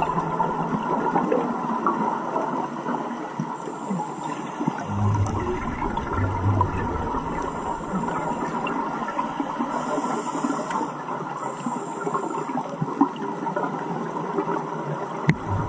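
Steady rushing of water, an even noisy wash with no rhythm. Two brief low thumps come about five and six and a half seconds in.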